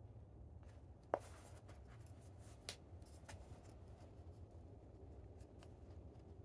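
Faint handling of small wooden pieces and a pencil: a few light clicks and taps, the sharpest about a second in, over a low steady hum.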